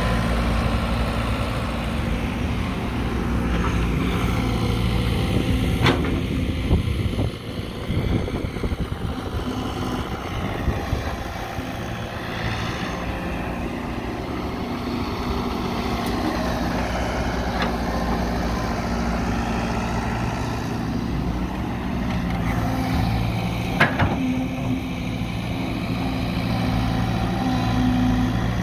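Caterpillar 312 hydraulic excavator's diesel engine running steadily as it digs and loads earth, with two sharp knocks, one about six seconds in and another about twenty-four seconds in.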